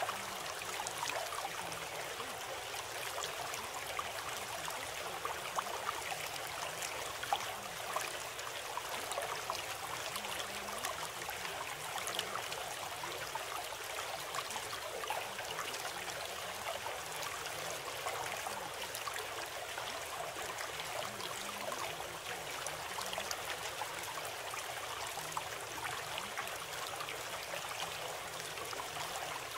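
Steady flow of a stream, water running and trickling with many small splashes, unchanging throughout.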